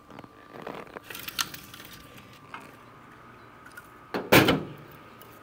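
Split pecan logs being pulled out of a stainless steel warmer cabinet: wood scraping and clattering against the metal shelf and doors, with one loud knock about four seconds in.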